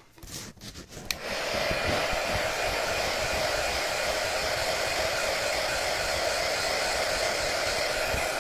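Hand-held hot-air dryer switched on with a click about a second in, then blowing steadily to dry freshly stencilled paint on a wooden sign.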